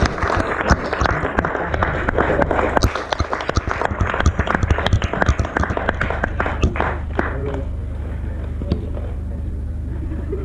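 Small crowd clapping and applauding, thinning out and stopping about seven seconds in, over a steady low hum.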